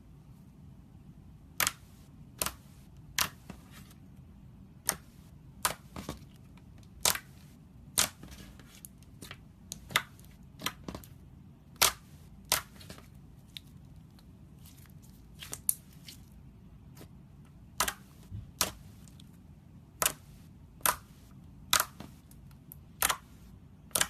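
Slime being pressed and poked, making sharp separate pops roughly once a second as trapped air pockets burst.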